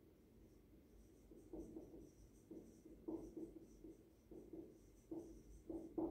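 Whiteboard marker writing on a whiteboard: faint, short scratching strokes one after another, starting about a second and a half in.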